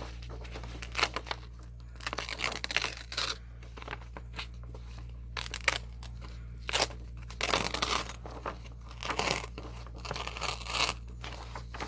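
A sheet of paper being torn by hand: the strips with holes ripped off its edges in a string of short irregular tears, with crinkling between them.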